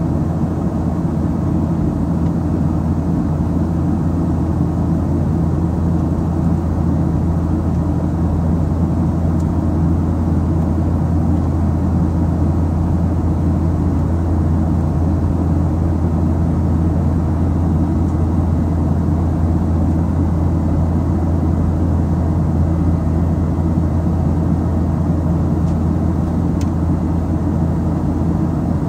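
Steady low drone of a Boeing 737-800 in flight, its CFM56-7B turbofan engines and the airflow over the fuselage heard from inside the cabin. It holds even, with no change in pitch or level.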